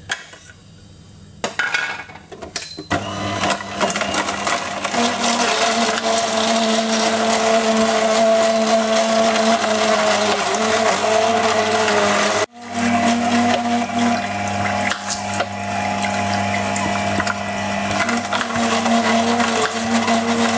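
Electric auger (slow) juicer running with a steady motor hum while its screw grinds and crushes carrot pieces into juice. The motor starts about three seconds in, after a few handling clicks, and the sound cuts out abruptly for a moment about halfway through.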